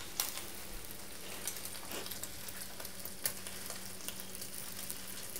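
Bacon strips frying in their own fat in a nonstick pan: a steady sizzle with scattered pops of spitting fat, a few louder than the rest. A faint steady low hum runs underneath.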